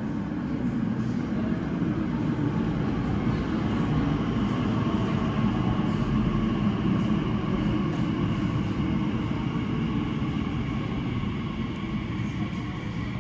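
Elizabeth line Class 345 electric train running into an underground platform behind glass screen doors, slowing as it comes in. Its rumble builds over the first few seconds and then eases, with a faint steady whine over it.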